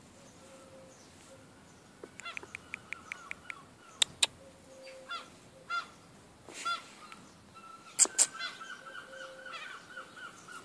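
Short animal calls repeating through the second half, with a quick run of clicks about two seconds in and sharp knocks in pairs around four and eight seconds in.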